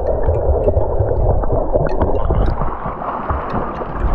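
Muffled churning and gurgling of wave-stirred seawater heard through an action camera's microphone underwater, dotted with small clicks. About two and a half seconds in, the sound opens up as the camera comes back up into the air.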